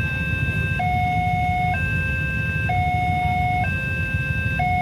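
Railway level-crossing warning alarm sounding a two-tone electronic signal that switches between a lower and a higher tone about once a second, over a steady low rumble.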